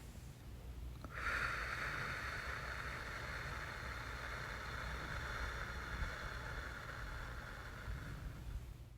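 A person taking one long, slow, deep breath through the mouth, a steady airy hiss that starts about a second in, lasts about seven seconds and tapers off near the end.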